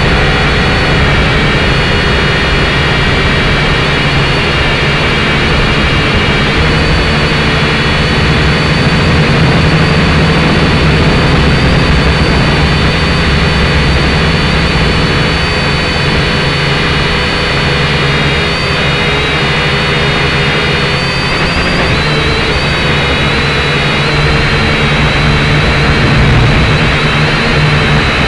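Drone motors and propellers heard from the onboard camera: a loud, steady whine of several tones that shift slightly in pitch now and then as the motors change speed.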